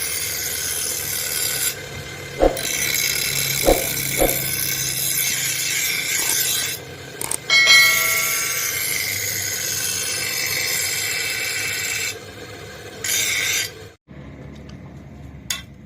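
Metal being worked with an abrasive, making a steady rasping, scraping noise in stretches with short breaks. There are a few sharp knocks about two to four seconds in and a brief ringing near the middle. The rasping stops and it goes much quieter near the end.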